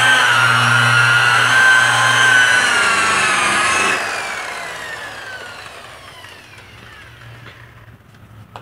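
Handheld angle polisher running a foam buffing pad across a car's painted panel, a loud, steady high-pitched whine. About four seconds in it is switched off and the whine falls in pitch and fades as the pad spins down, with a single click near the end.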